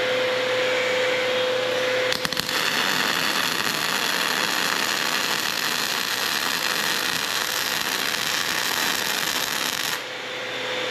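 MIG welding arc on steel, from a Vulcan MIG-Max 215 running 0.030 solid wire with C25 shielding gas. It strikes with a few clicks about two seconds in, crackles steadily as a bead is laid, and cuts off near the end. A steady fan-like hum runs underneath.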